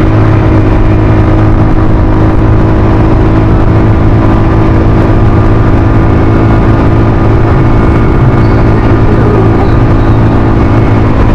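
Suzuki Skydrive scooter's single-cylinder four-stroke engine running loud and steady at a constant pitch under wide throttle, labouring as it pulls two riders up a steep climb.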